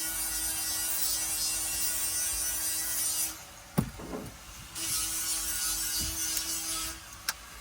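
A power tool cutting or rasping at wood, running with a steady hum in two passes of about three and two seconds. Between the passes there is a short pause with a single knock.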